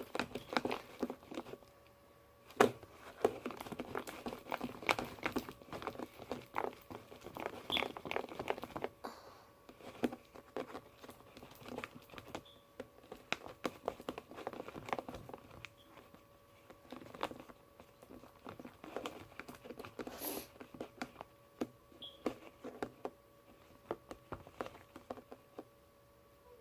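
Glue slime mixture with Tide detergent being stirred in a container with a mixing tool: a rapid, irregular run of small clicks, busiest for the first nine seconds or so and then sparser, with one sharper knock about two and a half seconds in.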